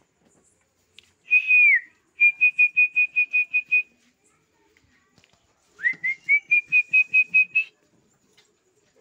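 A person whistling to call puppies: a long note that drops at its end, then a quick run of short notes on one pitch, about six a second, and later a second run of short notes that climbs slightly at first.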